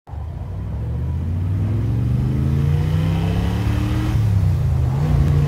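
Car engine and road noise heard from inside the cabin, fading in and rising slowly in pitch as the car accelerates, then holding steady near the end.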